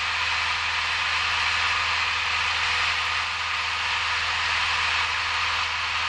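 Steady drone of a Cessna 172's engine and propeller with rushing airflow, heard inside the cockpit in flight.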